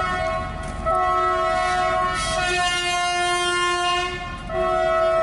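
Locomotive air horn blowing in long blasts. A short blast ends just after the start, then a long one of about three seconds shifts its tone partway through, and another begins near the end.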